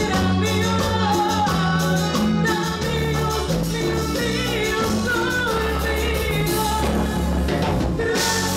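Live band playing an upbeat Latin song: drum kit, electric bass and a Roland Fantom-S88 keyboard, with a woman singing lead into a microphone.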